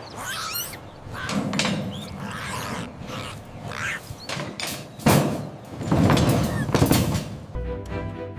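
Short animal calls mixed with knocks and scuffles, coming in irregular bursts; music begins near the end.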